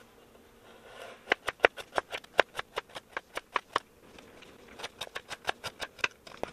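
Chef's knife slicing a carrot into thin rounds on a wooden cutting board: a steady run of sharp knocks, about four a second, starting just over a second in, pausing briefly about halfway through, then picking up again.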